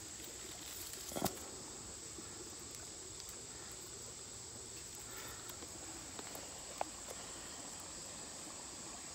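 Insects buzzing steadily, a high, even drone. A sharp click sounds a little over a second in and a smaller one near seven seconds.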